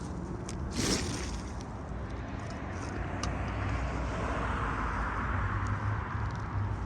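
Road traffic running steadily, a vehicle passing and swelling in the middle, with a short scrape about a second in.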